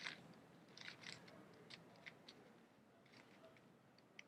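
Faint, scattered light plastic clicks of a 7x7 puzzle cube's layers being turned by hand.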